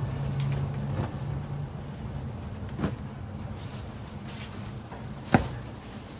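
Cotton handloom sarees being handled, one folded away and the next shaken open and spread out: cloth rustling, with three short knocks, the sharpest just past five seconds in.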